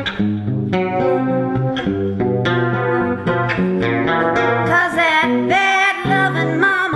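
Live blues music: guitar playing throughout, with a wavering lead melody line over it in the second half.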